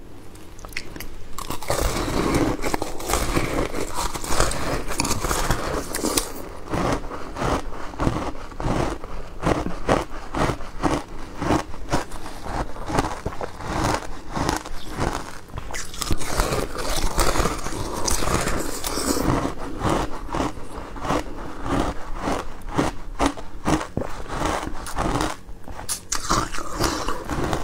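Wet shaved ice crunching as a person bites and chews a compacted block of it dipped in passion fruit juice, many rapid crunches in close succession with a brief lull near the end.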